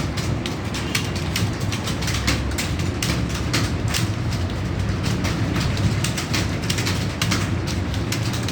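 Many computer keyboards clattering at once as a room of candidates types in a timed typing test: dense, irregular key clicks over a steady low hum.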